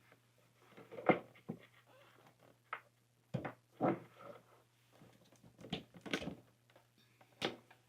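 Irregular knocks and clicks of objects being handled and set down, about seven in all, over a faint steady hum.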